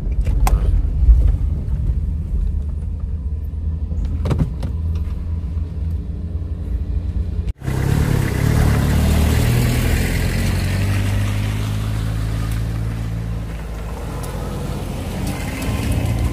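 Car cabin noise while driving on a rough road: a steady low rumble of engine and tyres, with a few knocks. About halfway through it cuts abruptly to outdoor sound: wind buffeting the microphone over a van engine running steadily.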